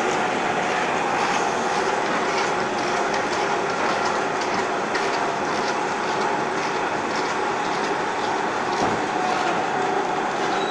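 Eye-drop bottle filling and capping machine running: a steady mechanical clatter with rapid, irregular clicking of small plastic bottles and parts moving through the feeder bowl, rotary indexing table and chute, over a steady hum.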